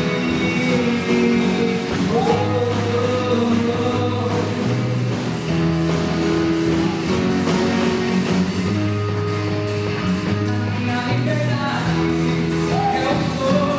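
A band playing a song with singing over guitar, bass and drums, at a steady beat.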